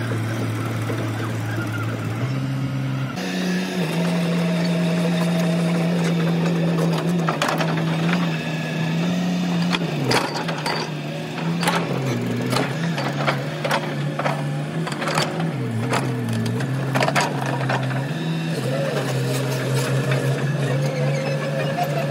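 Hitachi excavator's diesel engine running, its note stepping up about three seconds in and then sagging and recovering several times as the hydraulics are worked. Scattered sharp metal clanks and knocks come through over the engine.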